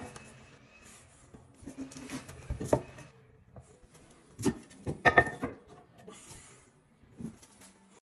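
Scattered knocks and scrapes, as of tools or materials being handled, with a cluster of sharper knocks about four to five and a half seconds in.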